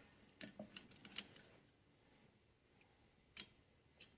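Near silence with a few faint clicks and ticks: small screws and a screwdriver being worked on a lamp arm. A cluster of light clicks comes in the first second or so, and one more near the end.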